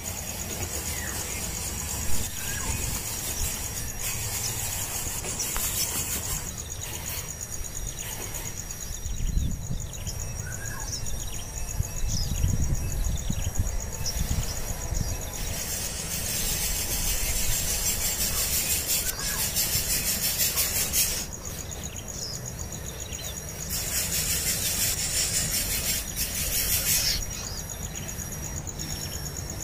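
Outdoor insect chorus: a steady high trill runs throughout, and twice a much louder high buzzing swells for several seconds. Short bird chirps are scattered over a low rumble.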